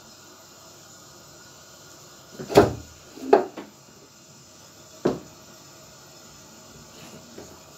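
A few sharp knocks and thumps: a loud one about two and a half seconds in, two more close behind, and another about five seconds in.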